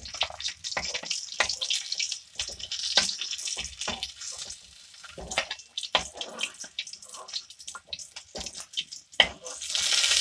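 Rohu fish steaks sizzling in hot oil in an aluminium kadai, with crackling spits and a metal spatula scraping and clicking against the pan as the pieces are turned and lifted. The sizzle swells louder near the end.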